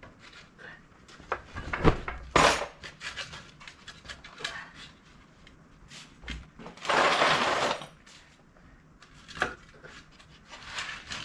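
Scattered metal clanks and knocks of tools and parts during hand work on a tracked machine, the two loudest about two seconds in, with about a second of scraping just past the middle.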